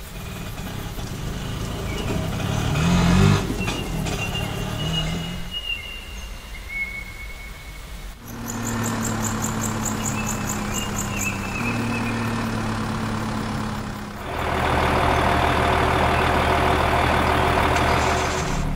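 Vehicle engine sound effects: a steady engine hum starting about eight seconds in, turning into a louder, rougher engine noise a few seconds before the end.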